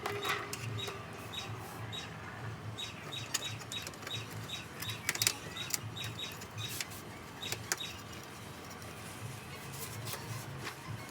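Irregular light clicks and taps, a dozen or more, some with a short high ping, over a faint low hum.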